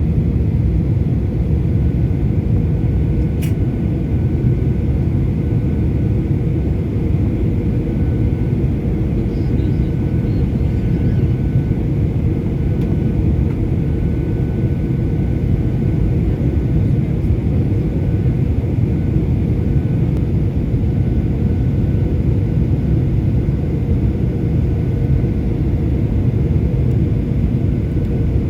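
Boeing 737-800 in flight, with its CFM56-7B engines and the airflow making a steady, loud low noise that does not change. There is a faint on-and-off thin tone, and one sharp click comes about three and a half seconds in.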